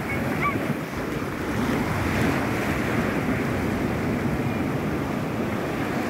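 Ocean surf breaking and washing up the sand, a steady rushing that swells a little about a second and a half in.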